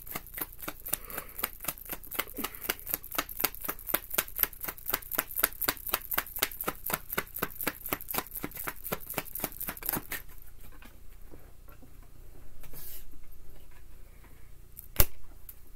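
Tarot deck being shuffled by hand, the cards flicking and slapping in a quick, even run of about four or five clicks a second that stops about ten seconds in. A short rustle and a single sharp tap follow near the end.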